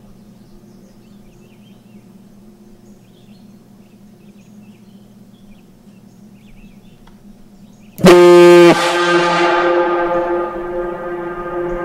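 Gamewell Type C fire-station diaphone, a compressed-air horn. For the first eight seconds the tone of a previous blast hangs on faintly. About eight seconds in, a new blast starts suddenly, very loud for under a second, then settles into a steady, slightly quieter deep tone that carries on.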